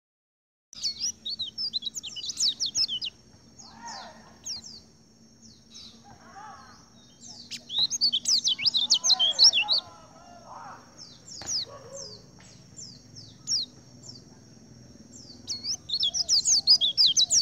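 Several pleci dakun white-eyes singing together: bursts of fast, high twittering phrases, three times, with single high chirps and softer, lower warbling notes in between. It starts about a second in.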